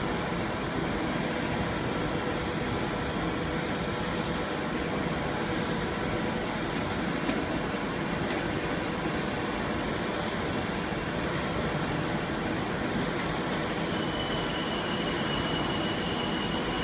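Plastic film blowing machine running: a steady mechanical noise with a constant high whine. A second, lower whine joins about three-quarters of the way through.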